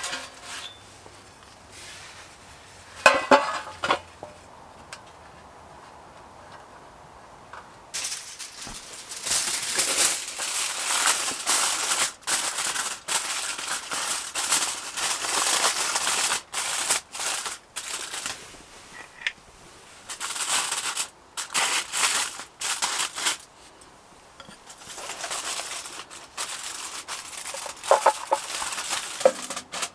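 Oiled pumpkin wedges sizzling in a hot pan on a wood-burning camp stove. The sizzle starts about eight seconds in as a dense hiss that stops and starts repeatedly. Before it there is only a low hiss and a single knock about three seconds in.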